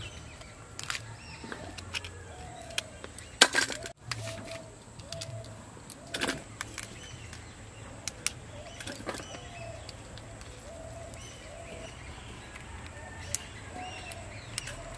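Raw crab shells cracking and snapping as they are pulled apart by hand, in scattered sharp clicks with one louder crack about three and a half seconds in. A bird calls repeatedly with short chirps in the background.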